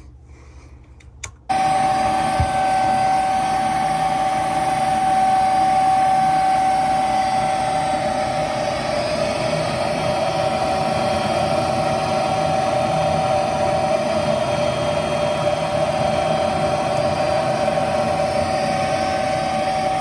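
Gas furnace draft inducer motor starting up suddenly about a second and a half in, then running steadily with a prominent whine, as the furnace begins its ignition sequence with the hot surface igniter heating.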